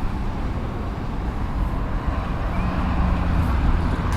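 Distant jet airliner on approach to land: a steady low rumble that slowly grows louder, with a faint high engine whine coming in about halfway through.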